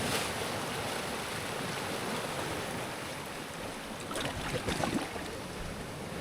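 Sea waves washing on the shore, a steady rushing noise that grows briefly louder about four seconds in.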